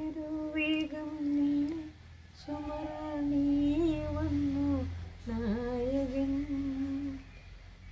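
A woman singing in three long, drawn-out phrases with short breaths between them.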